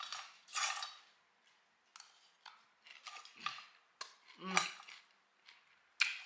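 A fork scraping and clinking in a bowl of crunchy kale-and-cabbage salad as bites are picked up, in short separate scrapes and clicks, the loudest about half a second in and about two-thirds through.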